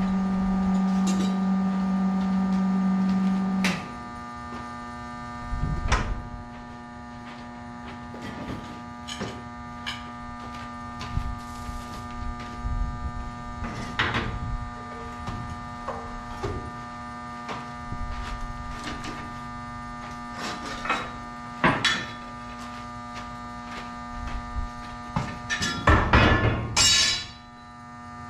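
Steady electrical hum with scattered knocks and clanks. A louder buzz cuts off about four seconds in, and a short, louder scraping noise comes near the end.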